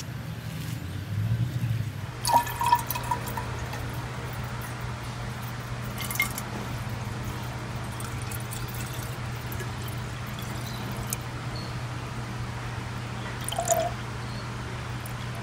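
Water poured from a plastic bottle into a stainless-steel insulated drink bottle, with a few sharp clicks and knocks, the loudest a little over two seconds in, over a steady low hum.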